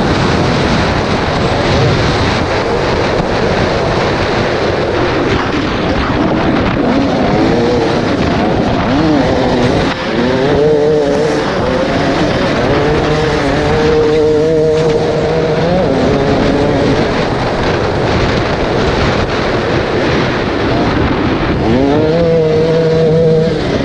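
Two-stroke enduro motorcycle engine being ridden off-road, revving up and down with the throttle, its pitch climbing and falling several times, over a dense rushing noise.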